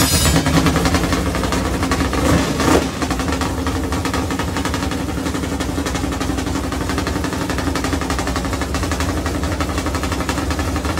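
Hendrick Motorsports V8 race engine on an engine stand, just fired up on its first start after final assembly. It gives one short rev about two and a half seconds in, then settles into a steady, choppy idle of rapid firing pulses.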